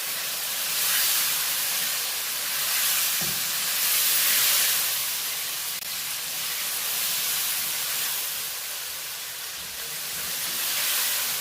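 Chicken curry frying in oil on high heat: a steady sizzling hiss that slowly swells and eases.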